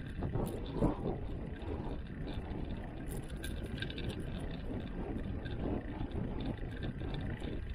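Bicycle riding at speed: wind buffeting the microphone over the rumble of tyres on rough, cracked pavement, with a few light rattles.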